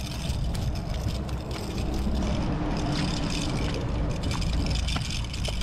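Steady low rumble of wind and surf on a small action-camera microphone, with a few scattered small clicks and ticks.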